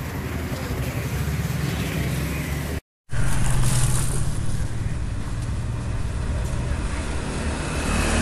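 Motor vehicle engines running and passing on the road, over a steady low engine hum. The sound cuts out briefly just under three seconds in, then returns louder.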